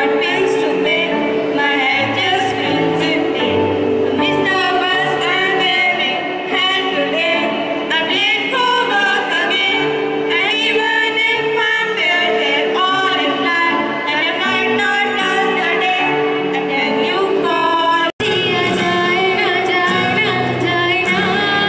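Two girls singing a song together into microphones over a PA, with a steady instrumental backing. About eighteen seconds in, a sudden cut to a girl singing with acoustic guitar accompaniment.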